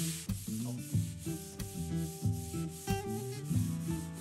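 Hand sanding with 320-grit foam-backed abrasive paper, straight light strokes along the grain of an ash veneered tabletop to denib a slightly rough finish, with almost no pressure. Soft background music with held notes plays under it.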